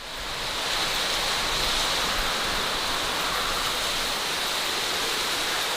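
Steady rushing noise of strong wind outdoors, fading in over the first second, with a thin high hiss held steady above it.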